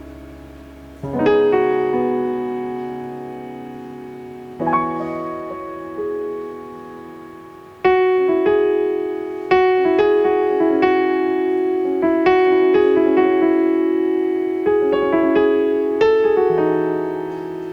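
Background piano music: a few slow chords that ring and fade, then a steadier run of notes from about eight seconds in.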